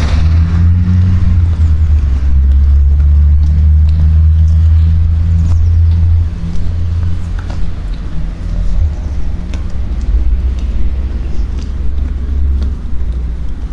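Low, steady engine rumble of a motor vehicle close by, loudest for the first six seconds and then a little weaker.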